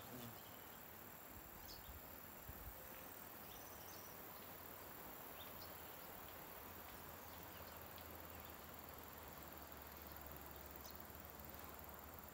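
Faint outdoor ambience of insects: a steady thin high whine with short high chirps scattered throughout.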